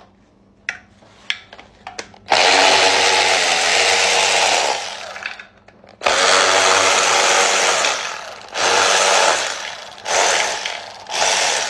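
Handheld power tool running in bursts as it spins screws out of a Mazda Miata 1.8-litre BP engine: two long runs of about two seconds each, then three shorter pulls. A few light metallic clicks come before the first run.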